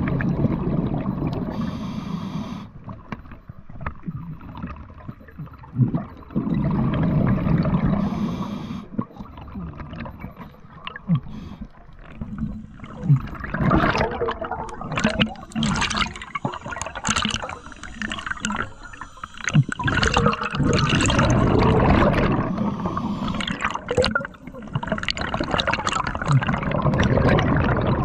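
Scuba diver breathing through a regulator underwater: a short hiss on each inhale, then a longer gurgling rush of exhaust bubbles, in a cycle of about six seconds. The bubbling runs longest and loudest in the middle stretch.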